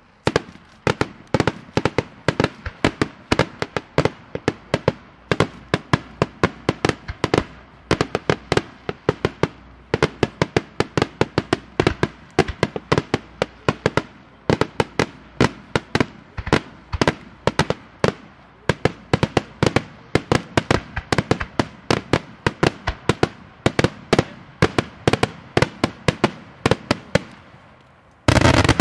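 Daytime aerial fireworks shells bursting in a rapid, uneven string of sharp bangs, about four a second. Near the end comes one dense, louder volley.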